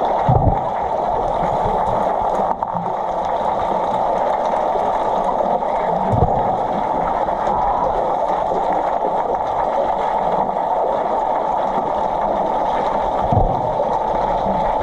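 Steady, muffled underwater noise of a swimming pool, picked up by a submerged camera, with three low thuds: one near the start, one about six seconds in and one near the end.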